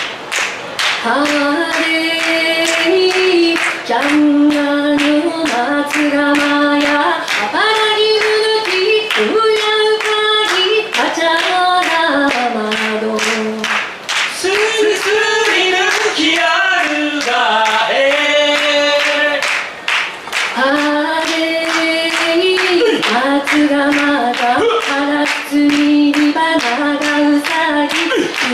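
Unaccompanied voices singing a song, held notes gliding between pitches, with hand claps keeping a steady beat.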